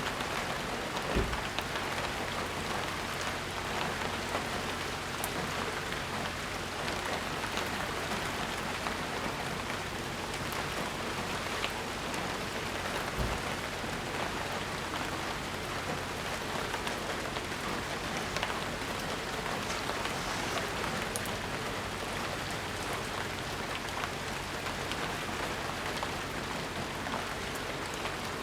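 Steady rainfall, a dense even hiss of rain pattering on surfaces, with no thunder. A dull low thump sounds about a second in and another near the middle.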